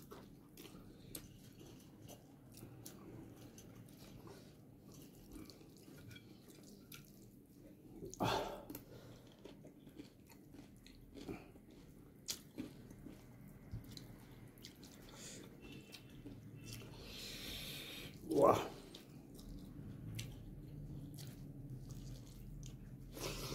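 Close-up eating sounds: a person chewing a mouthful of rice and fish curry, with soft wet mouth clicks and smacks, and two short louder mouth sounds about 8 and 18 seconds in.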